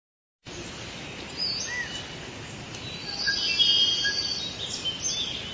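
Birds chirping and singing over a steady outdoor background noise, with short whistled calls and a louder trill about three to four seconds in.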